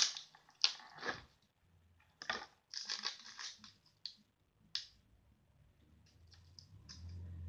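Packaging being handled while brushes are unpacked: short, sharp rustling and crinkling in irregular bursts, about a dozen of them.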